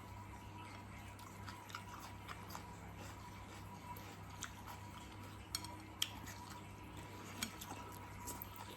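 Mukbang eating sounds: a person chewing patatim (braised pork hock), with scattered sharp clicks of cutlery against a plate, the loudest about halfway through. A steady electrical hum runs underneath.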